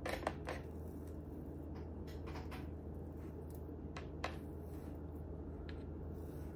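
Scattered soft taps and knocks from hands rolling a log of cinnamon-roll and cookie dough in a metal baking pan, over a steady low hum.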